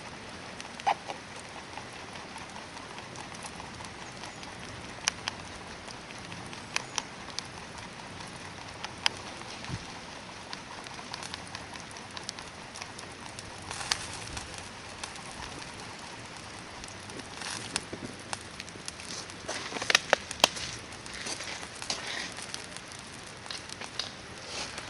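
Hardwood campfire burning: a steady hiss with scattered sharp crackles and pops, most of them bunched about twenty seconds in.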